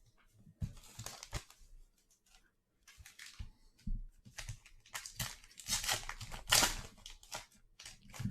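A foil trading-card pack wrapper being torn open and crinkled, in two spells of crackling, the louder one past the middle, with small clicks of card handling between.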